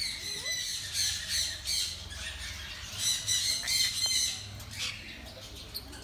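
A flock of parrots, sun conures among them, squawking and screeching over one another in harsh, high calls that swell in repeated bursts.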